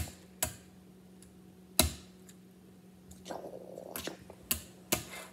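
Tech Deck fingerboard clacking against a granite countertop: a series of sharp, irregularly spaced clacks, with softer tapping around the middle, over a faint steady hum.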